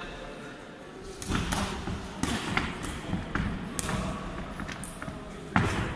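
Boxing gloves landing punches during an exchange in the ring: a string of sharp thuds starting about a second in, the loudest one near the end.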